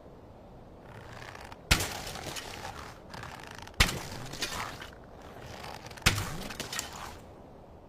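Sound effects of slingshot or bow shots: three sharp cracks about two seconds apart, each followed by a noisy tail about a second long.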